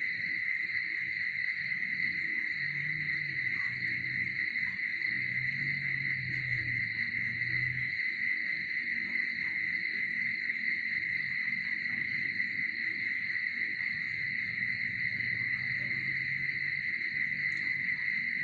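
Steady night chorus of crickets, a continuous high-pitched trill. A faint low drone comes and goes underneath.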